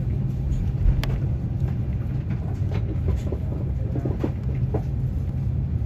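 Steady low drone inside an Airbus A330-300's cabin on the ground, with scattered light clicks and knocks, and one sharper click about a second in.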